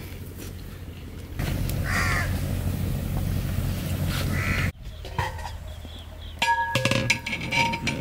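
A bird calling twice with harsh caws over a steady rushing background. After a sudden cut, metal clinks and rings as a long ladle knocks against the large metal cooking pot.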